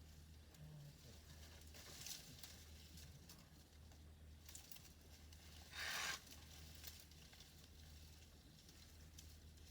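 Near silence: a steady low hum with faint scattered ticks, and one short hiss of noise about six seconds in.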